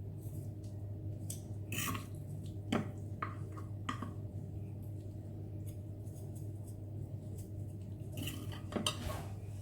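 Eating utensils clinking and scraping against a bowl of noodles, a handful of separate clicks and short scrapes, over a steady low hum.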